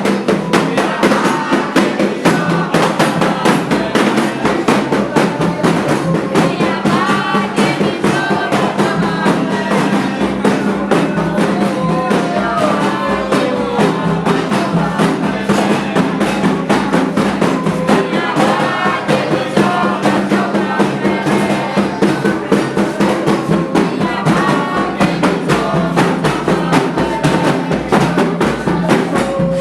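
Candomblé ritual music: atabaque hand drums beating a fast, steady rhythm under a sung chant.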